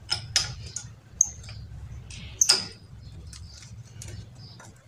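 A spanner clicking and clinking against the bolts of a monoblock water pump's casing as they are worked loose. The ticks come a few at a time, the loudest about two and a half seconds in.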